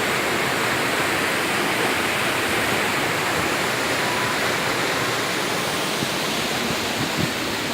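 Waterfall: a steady rush of falling water, the river running full.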